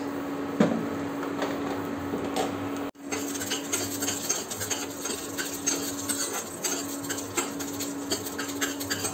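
Urad and chana dal frying in hot oil in a pan, crackling, over a steady hum. From about three seconds in a metal spatula stirs and scrapes them around the pan, making many quick clicks and scrapes.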